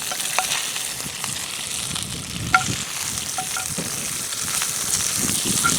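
Bacon frying in a pan over a campfire: a steady sizzle with a few sharp pops.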